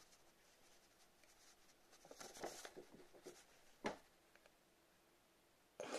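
Near silence: faint rustling of a paper sheet about two seconds in, a single soft click about four seconds in, and a short noisy breath from someone crying at the very end.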